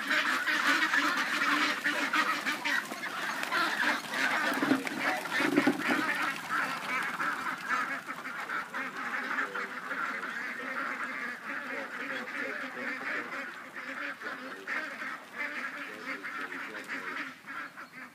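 A flock of ducks quacking in a constant, overlapping chorus, loudest in the first half and easing off later, as a herding dog drives them out.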